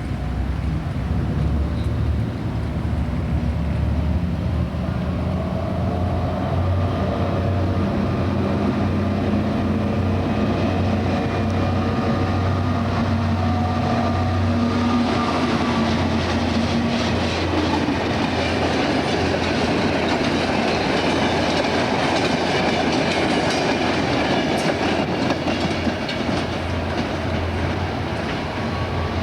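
Freight train passing, hauled by a T44 diesel-electric locomotive: the locomotive's diesel engine hums steadily for the first half. About halfway through, the wagons take over with a dense, rhythmic clickety-clack of wheels over rail joints that continues to the end.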